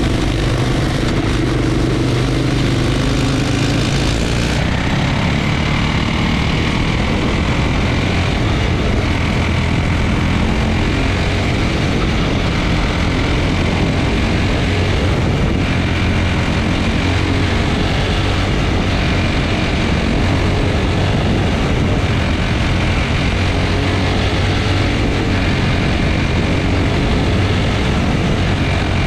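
Quarter midget's single-cylinder Briggs & Stratton Animal engine running steadily as the car laps the track, heard close up from a camera mounted on the car.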